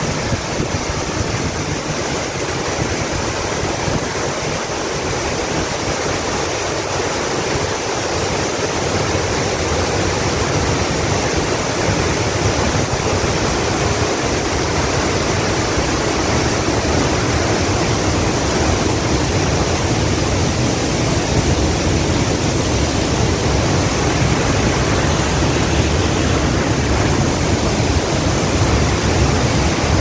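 Twin waterfalls pouring into a plunge pool: a steady rush of falling water that grows louder and fuller in the low end over the first half as they are approached.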